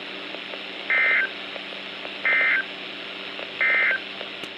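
Emergency Alert System End of Message signal: three identical short bursts of warbling SAME data tones, each about a third of a second long and roughly 1.4 seconds apart, over a steady radio hiss and hum. The bursts mark the end of the broadcast weather warning.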